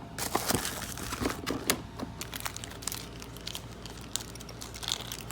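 Hands rummaging through small metal lock parts: an irregular run of clicks and clinks with crinkling and rustling.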